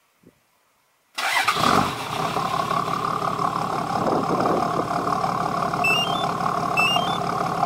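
Toyota Land Cruiser HDJ81's 1HD-T 4.2-litre turbo-diesel straight six with a 2.5-inch straight-pipe exhaust, remote-started: after a faint click it catches abruptly about a second in and settles into a steady idle. Twice near the end a short rising three-note chirp sounds over it.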